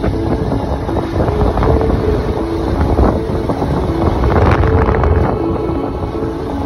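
Steady rumble of a vehicle driving along a road, with wind buffeting the microphone. Faint held tones stepping between two pitches sit underneath.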